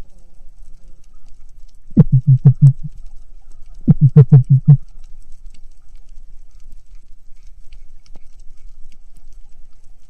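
Underwater sound with a faint steady crackle, broken about two and four seconds in by two short bursts of rapid low knocks, about five knocks each.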